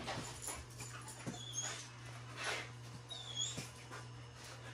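Two short high-pitched squeaks, about two seconds apart, over a steady low hum.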